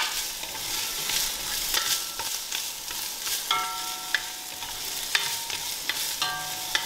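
Chopped onions sizzling in hot olive oil in an enamelled cast-iron pot, stirred with a spatula that scrapes and taps against the pot in short clicks. Twice a brief ringing tone rises over the sizzle.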